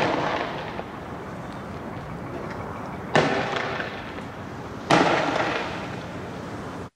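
Sharp explosive blasts in a street: one fading out at the start, then two more about three and five seconds in. Each rings out and dies away over about a second.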